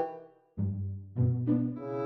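Music: a short orchestral phrase that dies away, then starts again about half a second in with a low note and steps up to higher held notes.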